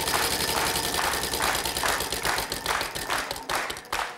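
Game-show prize wheel spinning, its pegs clicking rapidly against the pointer; the clicks slow and stop just before the end as the wheel comes to rest.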